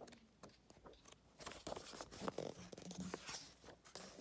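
Paper rustling and small clicks from the pages of a book being handled and turned, irregular and quiet.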